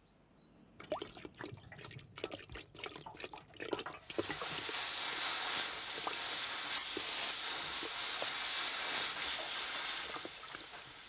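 Gas welding torch: irregular crackling and spitting for the first few seconds, then from about four seconds in a steady hiss that fades near the end.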